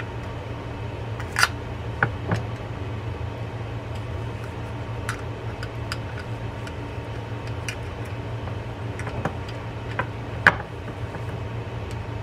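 Scattered light clicks and taps of small metal baitcasting-reel parts being handled and turned, the sharpest about a second and a half in and again near ten seconds, over a steady low hum.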